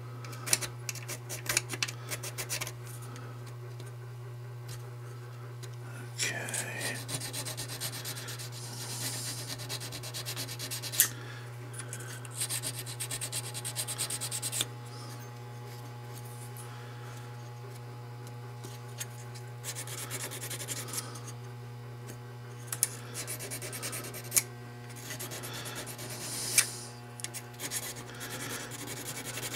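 Flat honing stone rubbed back and forth against a small steel part of an Uberti 1862 Police cap-and-ball revolver, to smooth it. The strokes come in several gritty bouts with pauses between, over a steady low hum.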